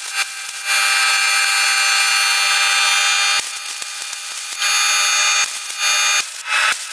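Compressed-air blow gun blowing sanding dust off a small wooden board. It gives a brief puff, a long blast of nearly three seconds, then three shorter blasts, each a hiss with a whistling tone that stops sharply.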